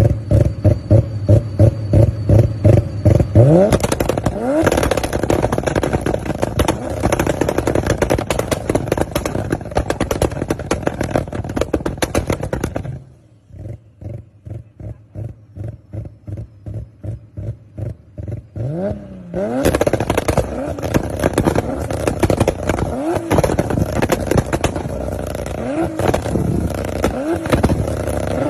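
Mk5 Toyota Supra's turbocharged inline-six revved hard and held high with a dense crackle of exhaust pops and bangs. About thirteen seconds in it drops to a quieter, lumpy idle, then is revved up again with several quick blips near the end as the exhaust spits flames.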